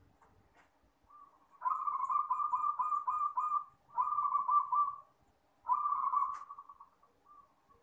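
Zebra dove (perkutut) cooing: three phrases of rapid, pulsing coo notes, the first and longest starting about one and a half seconds in.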